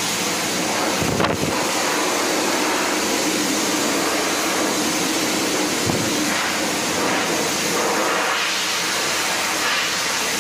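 Steady hiss of water running into a stainless steel dog-bathing tub, with a brief bump about a second in and another near six seconds.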